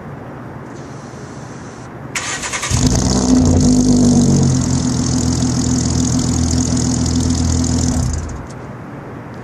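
2011 Ford Mustang's 3.7 L V6 exhaust, through a BBK X-pipe with no catalytic converters: the starter cranks briefly about two seconds in, the engine catches and runs at a steady idle for about five seconds, then it shuts off.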